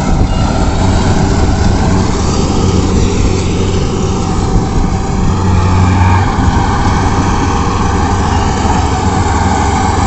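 Rice combine harvester running steadily as it cuts and threshes paddy: a loud, continuous engine and machinery drone with a low hum.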